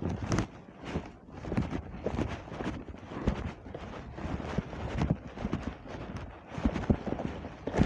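Footsteps on dry, cracked mud: a person walking at a steady pace, about two dull thuds a second.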